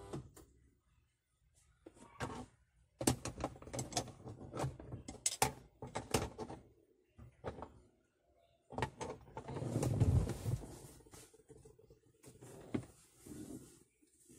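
2012 Honda CR-V passenger-side power window switch clicked over and over, then the power window motor runs for a couple of seconds, moving the glass. The switch is being tested after a repair of its on-and-off fault.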